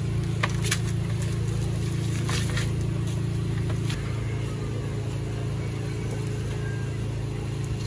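Steady low hum of an idling vehicle engine, its tone shifting slightly about four seconds in, with a few faint clicks in the first three seconds.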